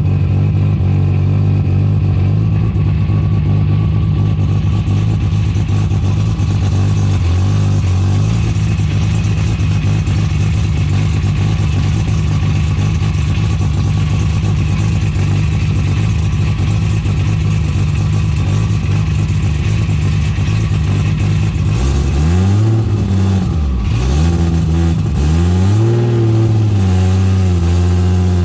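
Toyota Supra drivetrain running, heard from close to its rear differential, whose ring gear has three or four teeth ground down and is about to shatter. A steady drone for most of the time, then near the end the pitch falls and rises several times as the speed changes.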